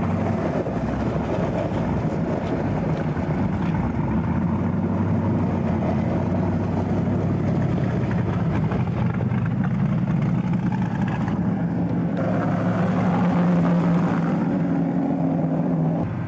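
Formula Offroad car's engine running steadily, getting somewhat louder about twelve seconds in.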